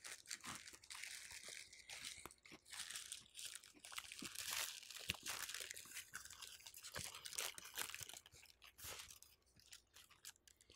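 A person chewing a crunchy battered chicken strip sandwich close to the microphone: irregular crisp crunches and mouth sounds, the fried batter still crunchy.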